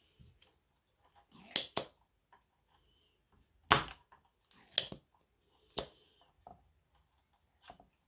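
About six sharp clicks and knocks, two close together early on, the loudest near the middle, from a spring-loaded desoldering pump being picked up and handled at a circuit board.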